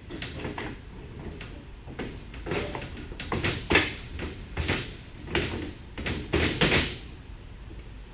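A run of short scrapes and clunks, a dozen or so in quick succession, the loudest near the middle and toward the end, as motorcycle parts and hardware are handled and fitted during a frame mock-up.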